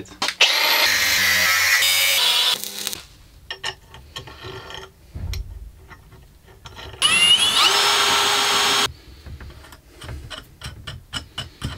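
A handheld power tool runs in two bursts of about two seconds each, one near the start and one about seven seconds in; the second begins with a rising whine as the motor spins up. Between the bursts come light clicks and knocks of metal parts being handled.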